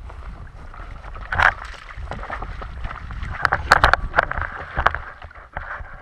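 Water splashing and sloshing at the side of a fishing kayak, with several sudden, irregular knocks or splashes, the loudest about one and a half seconds in and a quick cluster in the middle, over a low rumble of wind on the microphone.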